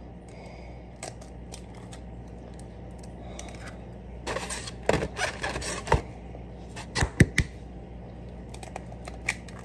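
Eggs being cracked against the rim of a glass mixing bowl: sharp taps and cracks in a cluster about four to six seconds in and again about seven seconds in, over a steady low hum.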